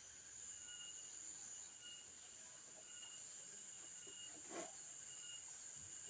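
Faint background of insects: a steady high-pitched drone with a lower chirp repeating every half second or so. A single soft knock about four and a half seconds in.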